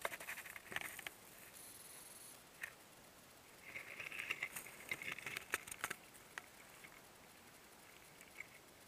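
Faint rustling and light clicks as a dead wild turkey is lowered onto dry grass and handled, its feathers and the grass brushing. The handling is busiest around the middle.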